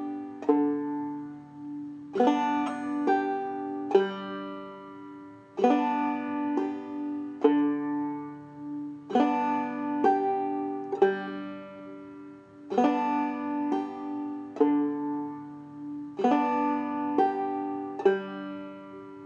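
Five-string banjo played clawhammer style, slowly: the knock-brush-thumb stroke pattern repeated, a short group of plucked and brushed strokes about every three and a half seconds, with the notes left ringing in between.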